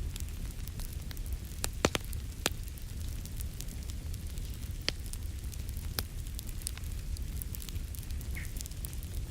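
Wood fire crackling in a fireplace: scattered sharp pops and snaps, a few louder ones about two seconds in, over a steady low rumble.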